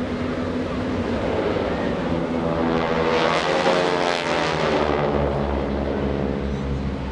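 Formation of six SNJ/T-6 Texan trainers passing low overhead, their Pratt & Whitney R-1340 radial engines and propellers swelling to a peak midway and then dropping in pitch as they go past.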